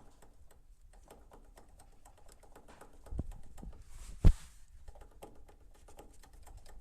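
Lada Vesta's right-hand engine mount knocking: a few sharp knocks about three and four seconds in, the last the loudest, over a fast faint ticking. The knock is a sign of a weak, worn engine mount.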